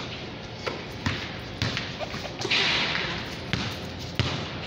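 A basketball bouncing on a concrete floor: about six irregularly spaced thuds, with a short rush of hissing noise about halfway through.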